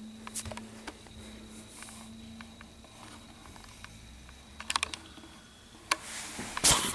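Scattered light clicks and scuffs of a puppy moving about on a tiled floor around someone's feet, with a quick run of clicks about two-thirds of the way through and a louder rustle near the end.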